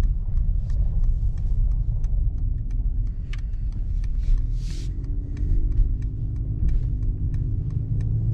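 Low, steady rumble of the Mercedes-AMG CLS 53 heard from inside the cabin as it drives slowly through a turn: its 3-litre inline-six and the tyres on the road. Light regular ticking runs through it, the turn signal for the right turn. A steady engine hum joins in about halfway.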